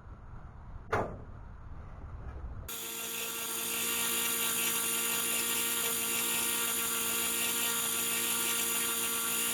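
A click about a second in, then the newly fitted electric fuel pump on a 1963 Mack C85 fire engine starts up with a steady, even whine that grows louder over the next second or so and then holds unchanged.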